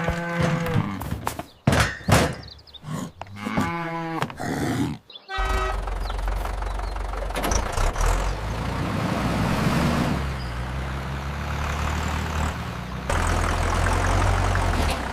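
Cattle mooing several times in the first five seconds, then a steady low engine drone starts about five seconds in and runs on.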